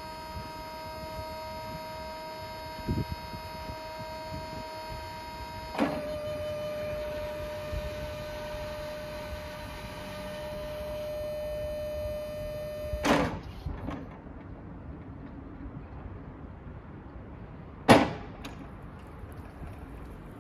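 Electric hydraulic lift pump of a Jungheinrich ERC 214 pedestrian/ride-on stacker whining steadily as the forks are raised. The pitch dips slightly with a knock about six seconds in. The whine stops with a clunk about thirteen seconds in, and after a quieter stretch a single sharp clunk comes near the end, the loudest sound here.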